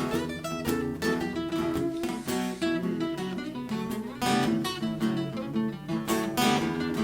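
Acoustic guitar playing an instrumental break in a blues song, picked single notes over strummed chords.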